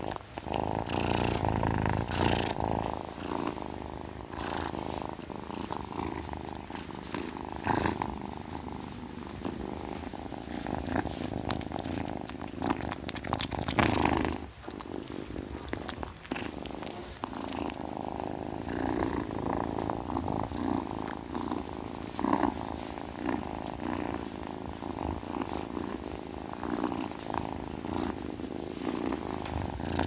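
Domestic cat purring: a steady rough rumble with occasional brief crackles.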